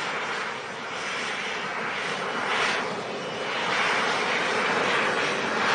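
Jet engine noise from an F-35B Lightning II, a steady rushing sound that grows louder in the second half.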